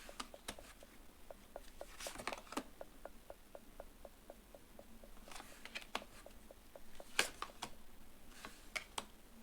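Soft rustles and taps of tarot cards being handled, heard several times over a faint, fast, even ticking of about six ticks a second.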